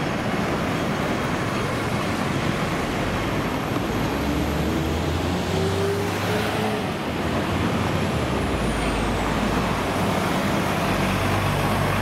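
Busy city street traffic: a steady wash of road noise with the engines of buses and cars running close by. About four seconds in, one engine's pitch rises for a few seconds as it pulls away.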